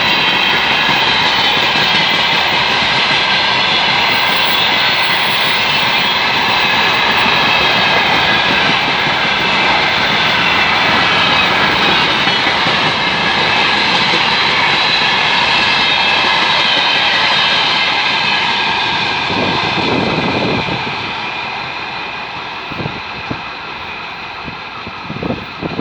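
2TE116 diesel freight locomotive running under power, its turbocharged diesel engines giving a steady high whine over the engine noise. The sound fades from about eighteen seconds in, and a few low thumps come near the end.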